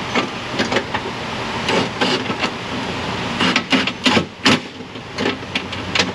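Irregular clicks and knocks of a socket and metal parts as bolts are fed in and snugged up to fasten window glass to its regulator inside a car door, with a cluster of sharper knocks about four seconds in, over a steady low shop hum.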